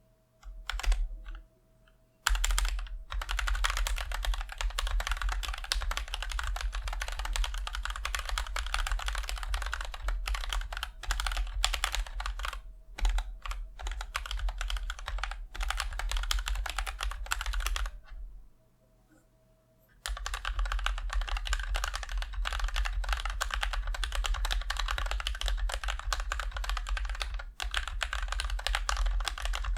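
Fast, continuous typing on a mechanical keyboard fitted with Gateron Milky Yellow linear switches, dense keystroke clicks. A few lone keystrokes start it off, and the typing breaks off for about a second and a half two-thirds of the way through before resuming.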